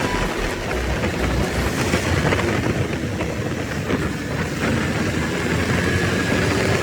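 Steady vehicle and road noise with rushing wind, as from riding along a road.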